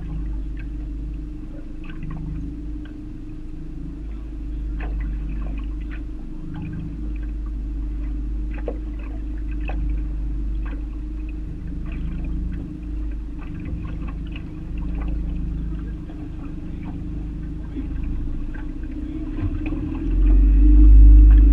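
Wind buffeting the microphone in a steady low rumble, with water lapping and slapping against the aluminum boat hull in short irregular clicks. A stronger gust swells the rumble near the end.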